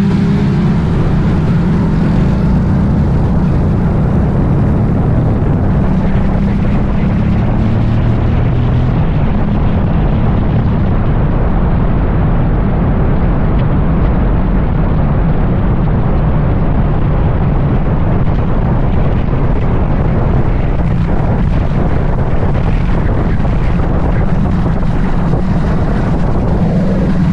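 Keeway Buccaneer 250i v2 motorcycle engine running under way, pulling away near the start and then running steadily at riding speed, with road and wind noise.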